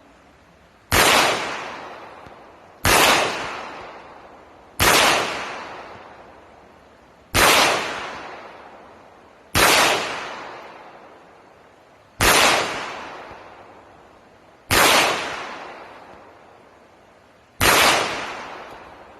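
Eight single 9mm pistol shots from a Canik SFx Rival, fired slowly about two to three seconds apart, each followed by a long fading echo. This is a slow aimed accuracy string.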